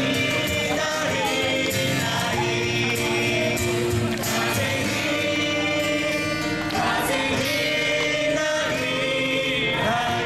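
A live song: several voices singing together over instrumental accompaniment.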